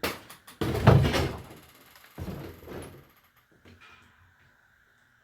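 Metal parts being handled and slid against each other while a hydraulic cylinder is taken apart. A sharp knock comes first, then a loud scraping slide about a second in and a weaker one about two seconds in.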